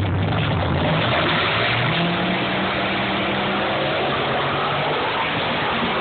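Two Chevrolet Nova drag cars' engines running loud at the start line, then accelerating hard away down the strip.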